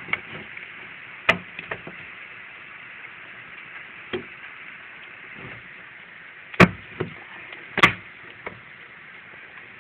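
Steady hiss of heavy rain, with irregular sharp knocks close by, the two loudest about a second apart a little past the middle.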